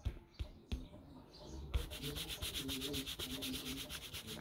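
A few light knocks, then from near two seconds in a fast, even rasping scrape of about ten strokes a second, as of something being sawed or rubbed back and forth.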